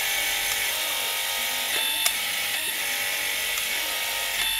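Electric hydraulic pump running steadily, powering a HYTORC Avanti 3 hydraulic torque wrench on a bolt. A single sharp click about two seconds in comes from the wrench cycling.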